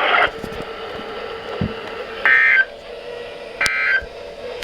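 Weather radio SAME digital data bursts: two short, identical buzzy chirps about a second and a half apart over radio hiss. They are the end-of-message code that closes the weekly warning-alarm test broadcast.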